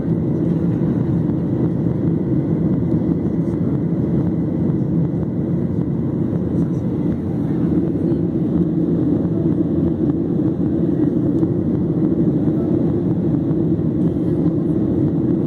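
Steady jet airliner cabin noise in flight: engine and airflow drone heard from a window seat, even and unchanging.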